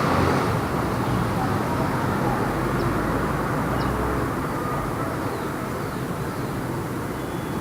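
Light city traffic: a steady rumble of passing cars and engines that slowly eases off, with a few faint high chirps over it.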